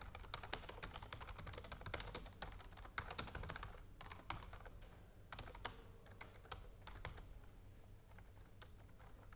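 Quiet typing on a computer keyboard: irregular keystroke clicks, busier in the first half and sparser later.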